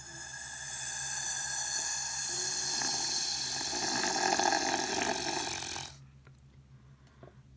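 Clear slime being squeezed, trapped air squelching out of it in one long fart-like noise. It grows louder and crackles in the middle, then cuts off suddenly about six seconds in.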